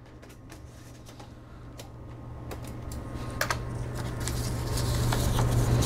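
A 5.25-inch floppy disk being swapped into a Compaq Portable III's drive, with a few sharp clicks as it goes in and the drive is closed. Then a steady low hum builds louder as the machine tries to boot from the startup disk, and cuts off suddenly at the end.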